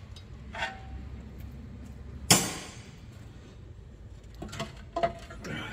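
Metal knocks and clinks from working the timing cover off a Subaru EZ30R engine: one sharp clang about two seconds in, then a few lighter knocks near the end.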